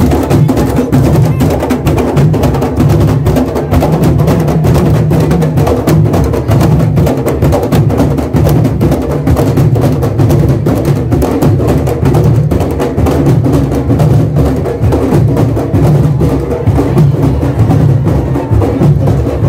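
Candombe drum line of a comparsa (tambores chico, repique and piano) playing together in a dense steady rhythm: sharp stick strikes and deep drum beats.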